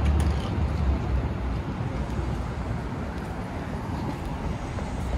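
City street traffic noise: a steady wash of passing vehicles with a deep engine rumble that is strongest in the first second or so and then eases off.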